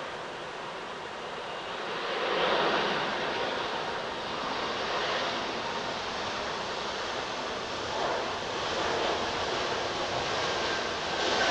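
Embraer E190-E2 jet airliner on its takeoff roll, its two Pratt & Whitney geared turbofan engines at takeoff thrust: a loud, even rushing jet noise that swells about two seconds in and again near the end as the aircraft passes.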